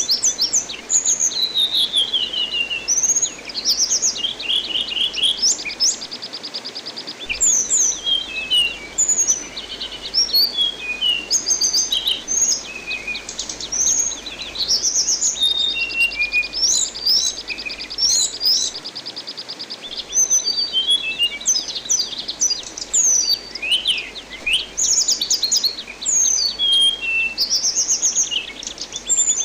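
Anis binbin, a thrush kept as a songbird in Indonesia, singing without pause: quick varied whistles, sliding notes and fast rattling trills. Under it runs a steady hiss of running water.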